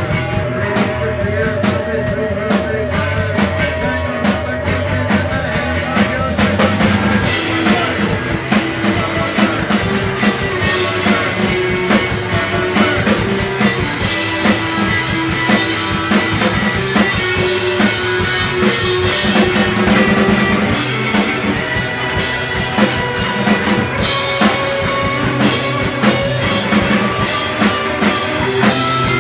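Live indie rock band playing an instrumental passage: a drum kit keeps a steady beat under sustained guitar and bass tones. The band gets louder and brighter about seven seconds in.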